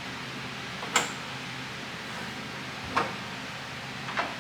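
Three sharp metallic clicks or taps, about a second in, three seconds in and near the end, made by tools and hardware being worked on a car door while fitting a door closer. A steady low hum runs under them.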